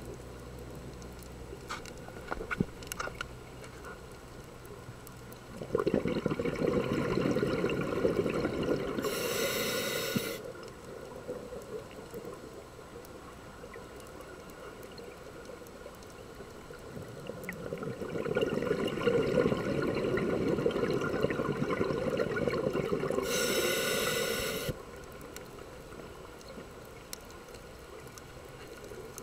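Scuba diver breathing through a regulator underwater: two long rushes of exhaled bubbles, each ending in a short hiss that cuts off suddenly, about twelve seconds apart. A few faint clicks about three seconds in.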